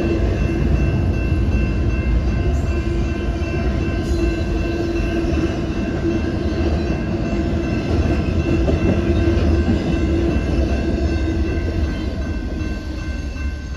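A train running past, with a steady heavy rumble and a few steady high ringing tones above it, easing slightly near the end.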